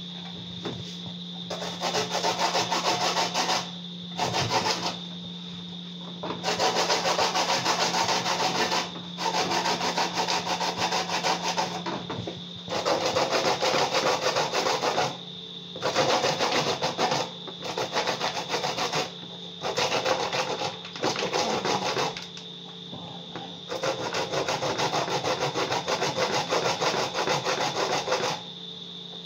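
Fresh corn cob rubbed up and down on the fine holes of a stainless steel box grater: runs of rapid rasping strokes a few seconds long, broken by short pauses.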